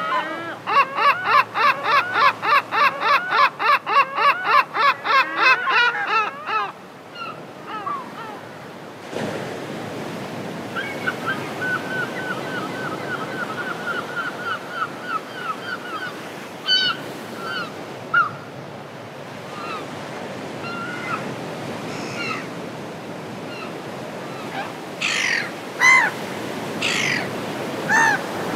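Birds calling over a steady wash of surf: a fast run of loud repeated calls for the first six seconds or so, a quieter series of short repeated calls in the middle, and a few loud harsh calls near the end.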